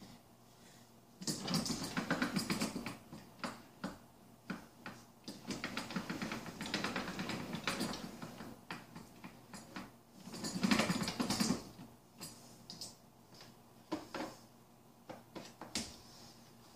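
Hard plastic parts of an electric snow blower clicking and rattling as they are handled and fitted, in three bursts of rapid clicks with a few single clicks between; the discharge chute is being fitted and pinned on.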